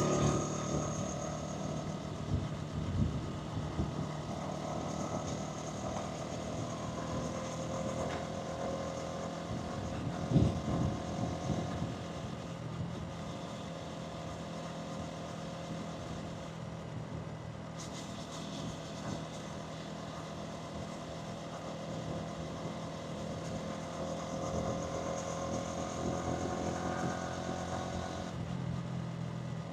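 Hansom Bennett 125cc motorcycle engine and exhaust running while riding, its pitch gently rising and falling with the throttle. A brief low thump comes about ten seconds in.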